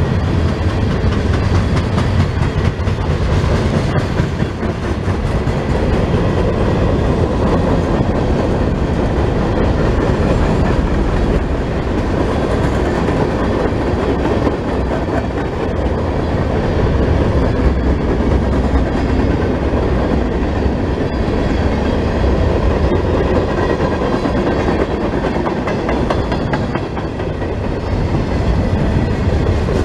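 Freight train of auto rack cars and a tank car rolling past at close range: steady noise of steel wheels running on the rails.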